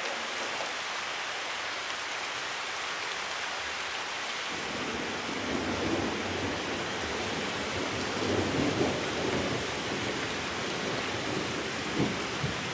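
Heavy rain falling steadily, with a low rumbling that sets in about four seconds in and swells in places, and a couple of sharp knocks near the end.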